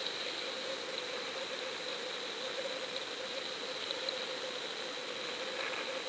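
Boat engine idling steadily, a constant hum with a thin high whine over it.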